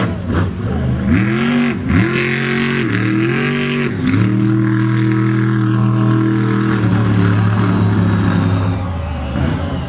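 Batman monster truck's engine revving in several quick rising-and-falling blips, then held at a high steady rev for a few seconds before easing off near the end.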